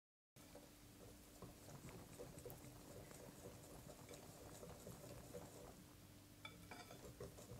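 Faint sound of a wire whisk beating a thin flour-and-milk batter in a glass bowl: soft, irregular wet clicks as the wires move through the liquid and touch the glass.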